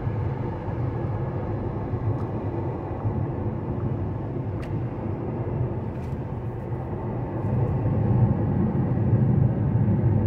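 Road and tyre rumble of a moving VW ID.3 electric car, heard from inside the cabin, with no engine sound; it grows louder about eight seconds in as the car picks up speed.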